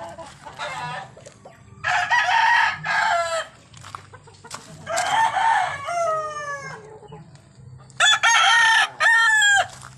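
Gamefowl roosters crowing: three long crows, one about every three seconds.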